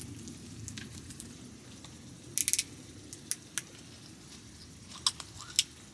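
Several sharp clicks and taps of small objects being handled at a table over a low steady background hiss. They come as a quick cluster about two and a half seconds in, then single taps, and two more near the end.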